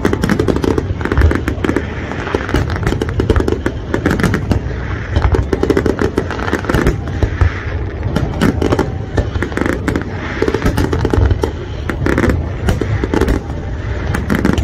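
Aerial firework shells bursting in a dense, continuous barrage: many overlapping booms and sharp pops, with no pause.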